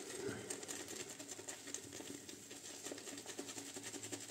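Omega shaving brush being worked against a tub of shaving soap, loading the bristles with lather: a faint, quick, wet ticking patter.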